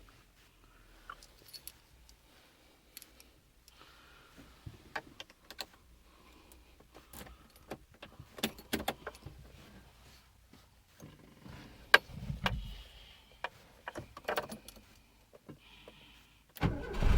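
Irregular light clicks, knocks and rattles of small hard objects being handled, loudest about 12 s in. Near the end comes a sudden louder noise that carries on.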